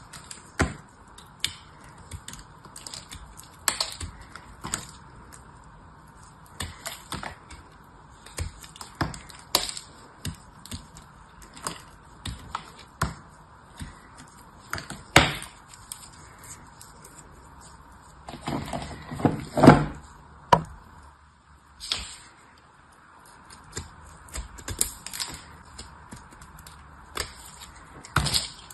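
A small blade cutting and scraping hard, dried soap: many short crisp clicks and cracks as small pieces snap off, with a longer, louder run of crunching a little past the middle.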